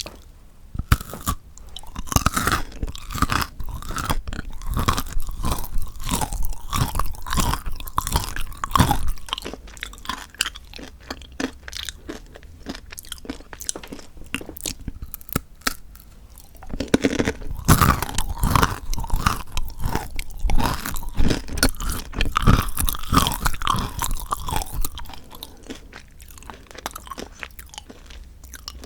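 Close-miked chewing of chocolate: crisp crunching bites and chews in two long bouts, with quieter chewing between them.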